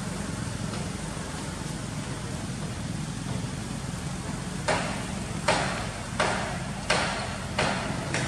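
A steady low engine hum, as of motorbikes running, and from a little past halfway a run of sharp swishing strokes, about three every two seconds, each dying away quickly.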